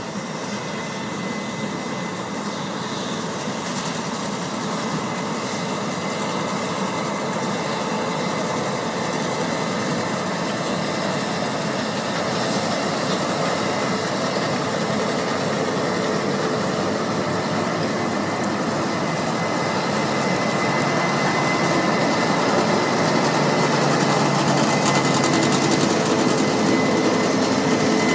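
Case IH 9120 combine harvester and the tractor alongside it running under load in the field: a steady, dense machinery din of engines and threshing with a thin high whine, growing slowly louder.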